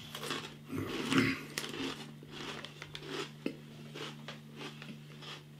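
A person chewing crunchy oven-baked cheddar snack sticks: an irregular run of small crunches and crackles, busiest about a second in.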